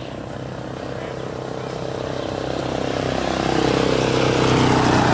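A motor vehicle approaching on the road, its engine and tyre noise growing steadily louder.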